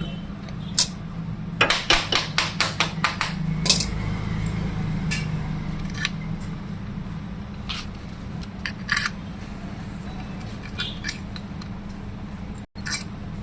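Metal-on-metal taps and clinks of hand tools on the e-rickshaw motor, with a quick run of about ten sharp taps a couple of seconds in and then scattered single clicks. A steady low hum sits underneath.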